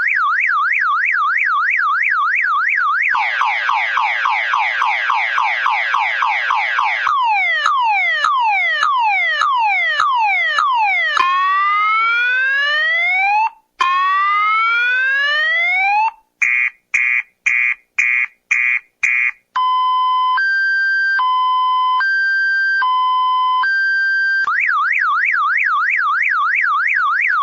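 Electronic car alarm siren cycling through its tones: a fast up-and-down warble, a rapid trill, repeated falling sweeps, rising whoops, quick on-off beeps, and a slow two-note high-low alternation, before returning to the warble near the end.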